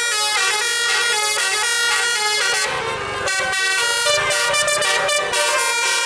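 Bus telolet horn playing a fast melody, several horn tones together stepping from note to note, with a short rush of noise about three seconds in before the tune carries on.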